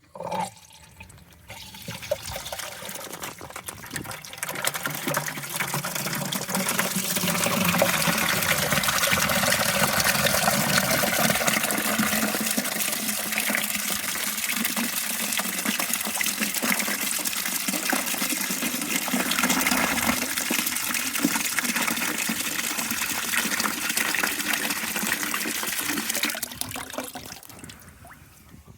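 Water running into a bucket as it is filled, starting softly, running steadily and strongly for most of the time, then easing off and stopping near the end.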